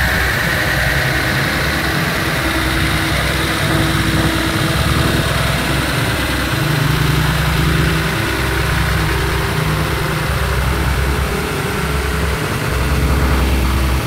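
Truck engine running at low, steady revs, a deep continuous rumble that swells slightly about halfway through and again near the end.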